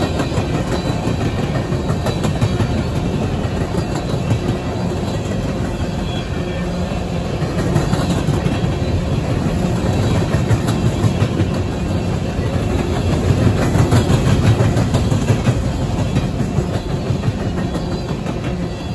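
Empty coal hopper cars of a freight train rolling past, a steady rumble of wheels on rail with clickety-clack over the rail joints.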